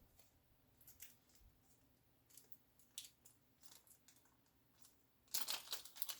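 Small metal parts being handled on a workbench: faint, scattered light clicks of a pistol slide and a small front sight being picked up and tried together. Near the end comes a short run of louder clicking and scraping.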